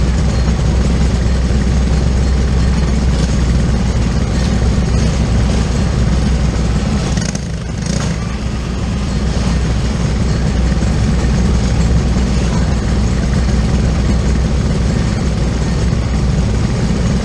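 Briggs & Stratton LO206 single-cylinder four-stroke kart engines idling, loud and steady, with a brief dip in level about halfway through.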